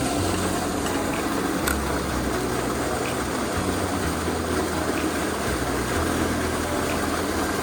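Mountain stream water rushing steadily, with an uneven low rumble underneath.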